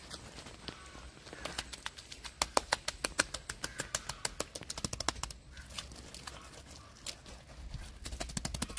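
Hands patting and slapping wet mud onto the surface of a mud sculpture: a quick, irregular run of wet slaps and pats, several a second, thinning out in the middle and picking up again near the end.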